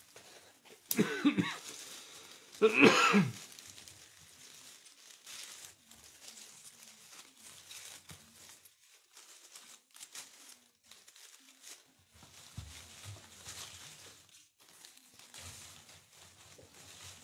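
Leafy ivy stems rustling and crinkling as bunches are shaken and handled, with two short vocal sounds from the man, throat-clearing or cough-like, about one and three seconds in.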